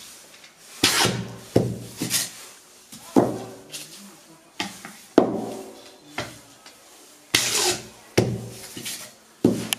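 Wooden rod pounded down inside a thick cardboard sky-shot tube: about eleven hollow knocks, irregular but roughly one a second, each with a short ringing tone from the tube.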